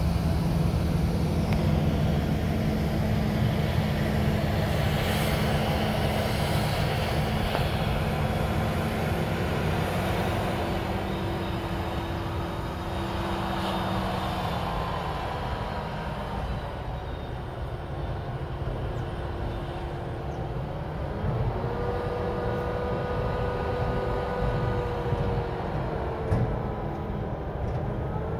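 Heavy diesel farm machinery running in a corn field: the tractor pulling a loaded silage wagon, together with a forage harvester. It is a steady low engine drone that eases a little partway through, and a steady higher whine joins in later on.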